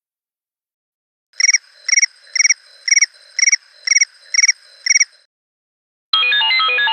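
iPhone XR alarm tone playing: eight short, identical trilled chirps at about two a second, then it stops. Near the end another, melodic alarm tone starts.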